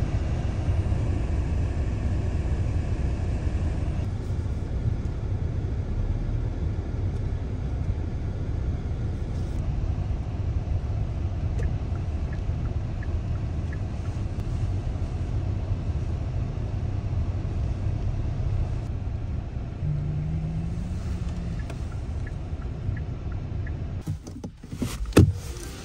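Car cabin noise while driving: a steady low road and engine rumble. Near the end the rumble drops away and there is a single sharp click.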